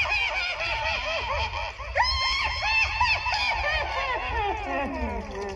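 A dense run of short, high-pitched voice-like cries in quick succession, each rising and falling in pitch, overlapping like shrieking laughter. A fresh, louder burst of them starts about two seconds in.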